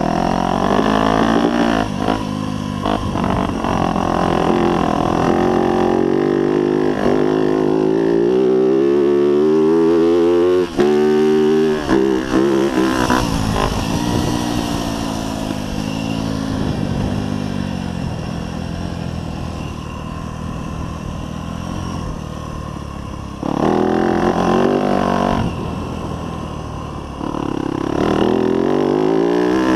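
Yamaha YZ250F dirt bike's 250cc four-stroke single-cylinder engine, heard close from an on-board camera, revving up and down as the bike is ridden: pitch repeatedly climbs and drops as throttle is opened and rolled off. Briefly cut about ten seconds in before a steep rise in revs, and sudden louder bursts of throttle near the end.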